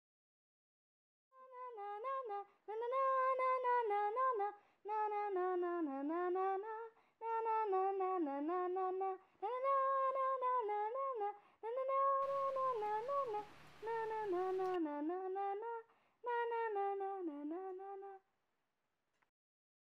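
A woman humming a slow, wordless melody in short phrases with brief pauses between them. A faint hiss comes in under it for a couple of seconds past the middle.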